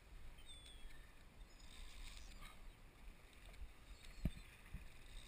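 Faint low rumble of wind and water around a small fishing boat at sea, with a dull thump about four seconds in and a softer one half a second later.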